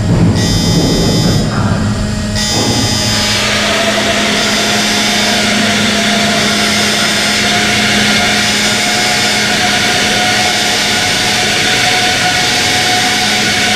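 Steady, loud drone of a warship's onboard machinery running, with a constant low hum and a higher whine over an even rushing noise. It is rougher and louder for the first two or three seconds.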